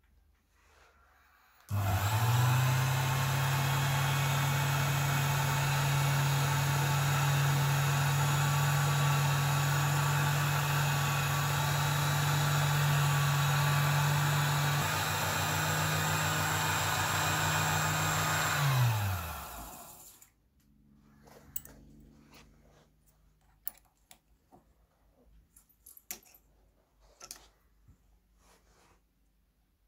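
Small benchtop lathe running with a drill bit in its chuck, drilling the eyelet hole in a cello bow frog: the motor starts about two seconds in, runs steadily for about seventeen seconds, then winds down. Afterwards a few light clicks and taps of hand tools.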